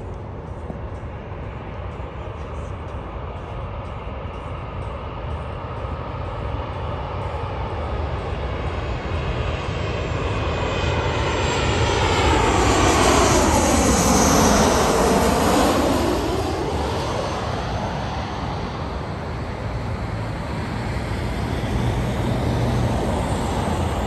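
Southwest Airlines Boeing 737-700 jet, with CFM56 turbofan engines, passing low overhead. Its engine noise swells to a peak about halfway through and then fades. At the loudest point a swirling sweep falls in pitch and then rises as the plane goes over.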